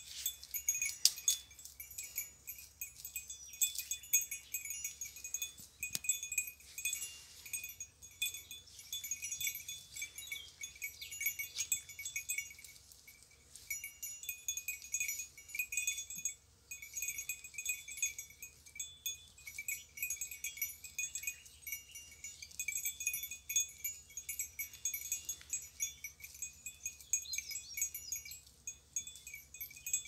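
Bells worn by a small herd of grazing goats, jingling in a quick, irregular, continuous tinkle of high ringing notes as the animals move and feed.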